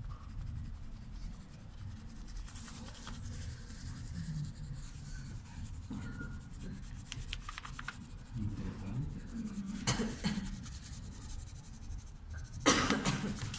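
White colored pencil scratching rapidly back and forth on paper laid over a coarse woven bag, picking up the weave as a texture rubbing. A louder rasping stroke comes near the end.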